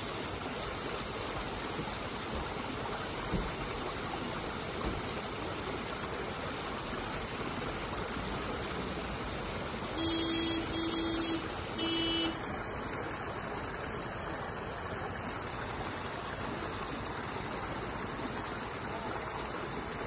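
Spring water flowing steadily out from under a rocky bank over gravel. About ten seconds in, a vehicle horn honks three short times.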